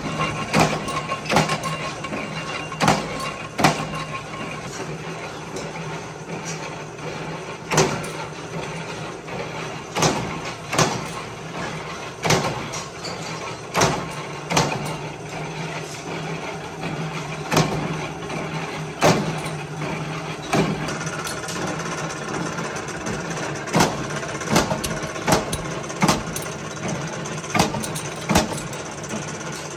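Flywheel-driven mechanical power press running with a steady drone, with a sharp metallic clank every second or two as it punches washers out of steel.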